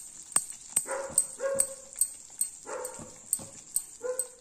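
Silicone spatula stirring thick, bubbling ghee Mysore pak batter in a nonstick pan as it cooks down toward the curling stage. A steady run of sharp clicks and pops comes about two or three a second. Four short, squeaky pitched whines sound among them.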